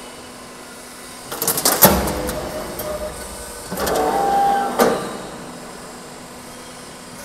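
Sheet-metal roll forming machine running as a steel panel feeds through its rollers, with a steady hum and two bursts of metallic clattering and banging, about a second and a half in and again about four seconds in.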